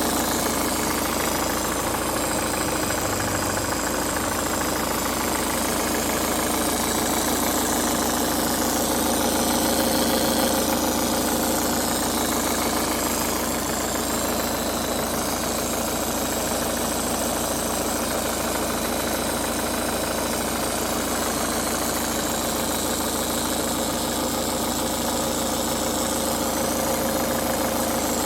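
Ford Focus Mk3 engine idling steadily while cold, carrying the abnormal engine noise the owner is recording on a cold engine.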